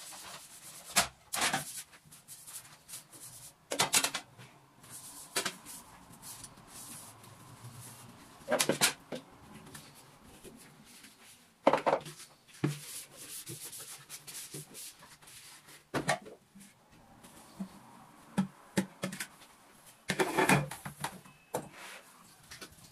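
Household handling sounds: irregular knocks and clatters of objects being picked up and set down, with light rubbing between them.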